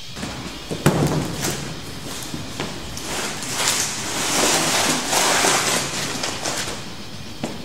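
A large flexible sheet knocks once on a concrete floor about a second in, then drags and slides across it with a scraping, rustling noise that is loudest in the middle and fades near the end.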